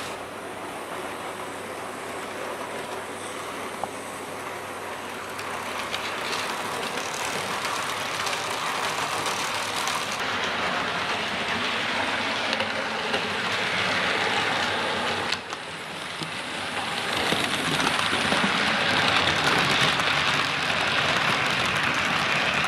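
Hornby Class 73 model locomotive running along the track, its motor whirring and wheels rattling over the rails, growing louder as it comes closer. It dips briefly about two-thirds of the way through, then rises again before cutting off abruptly.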